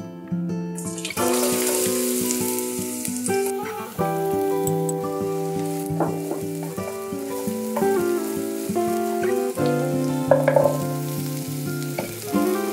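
Minced garlic sizzling in hot oil in a nonstick frying pan, loudest just after it goes in about a second in, and stirred with chopsticks; near the end sliced onion is dropped into the pan. Gentle background music plays alongside.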